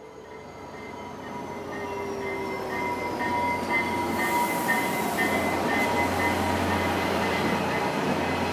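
Diesel passenger train drawing near and growing steadily louder for about four seconds, then running on steadily, with a low engine drone, a locomotive bell ringing about twice a second, and a high steady wheel squeal.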